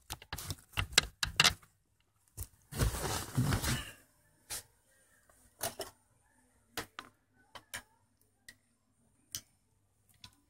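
Scattered clicks and knocks of hands fitting parts and tools under a car's dashboard, with a rustling scrape about three seconds in.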